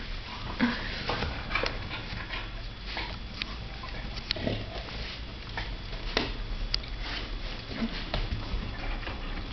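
A flat-coated retriever and a Thai Ridgeback play-wrestling on a bed: scattered short snuffles and brief dog noises, with rustling of the blanket under them.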